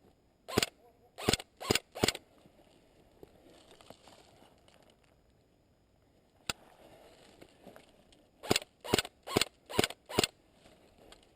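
Airsoft rifle firing shot after shot: four shots about a second in, a single sharp click mid-way, then five more shots near the end, each shot a quick snapping crack.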